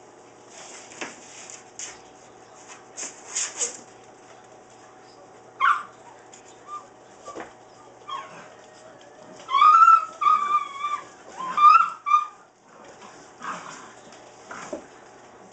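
Saint Bernard puppies yipping and whining as they play-fight, with scuffling between calls. A short sharp yelp comes about six seconds in, and a loud run of high yips and whines follows around ten to twelve seconds in.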